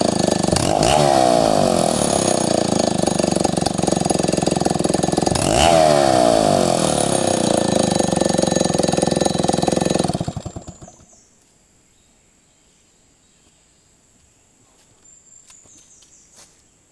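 Stihl 070 two-stroke chainsaw running hard, its engine speed rising sharply twice, then shut off about ten seconds in and running down to a stop. Only faint clicks and rustles follow.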